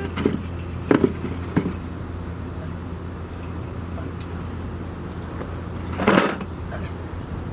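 Steady low mechanical hum, with a few light clicks early on and one short louder knock about six seconds in, as of tools or parts being handled during engine work.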